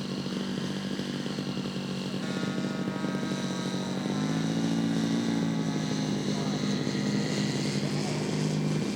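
Radio-controlled scale model airplane engine running steadily, its pitch stepping up about four seconds in as it is throttled up.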